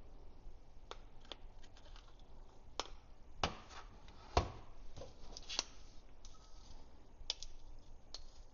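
Scattered light clicks and taps of a magnet and coins in plastic holders being handled, about a dozen in all, the two loudest about three and a half and four and a half seconds in.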